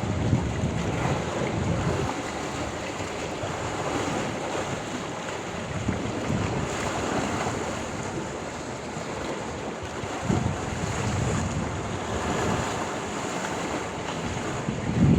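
Sea surf washing in and out, with wind buffeting the microphone. The rush eases after the first couple of seconds and swells louder again near the end.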